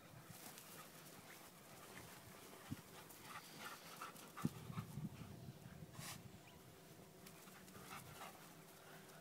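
Border collie panting faintly, with a few soft knocks, the sharpest about four and a half seconds in.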